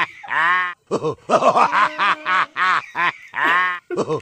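Giggling laughter in quick, high, pitched bursts several times a second, with pauses between runs.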